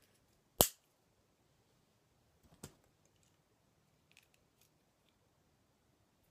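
Plastic K'nex connectors snapping onto rods: one loud sharp snap just over half a second in, a softer snap about two and a half seconds in, and a few faint clicks around four seconds.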